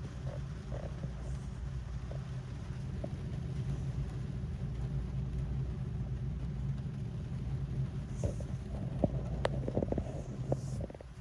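Rain falling on a car, heard from inside the cabin: a steady low drumming with scattered sharper drop hits, which come more often in the last few seconds.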